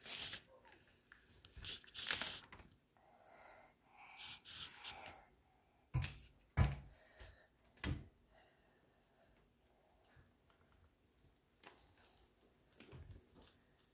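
Scattered light knocks and faint scraping close to the microphone, with three sharper thumps about six to eight seconds in: small handling and painting noises.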